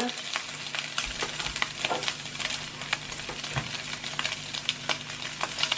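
Sliced pork sizzling in a hot frying pan, with many small irregular pops and crackles as it browns and renders its fat.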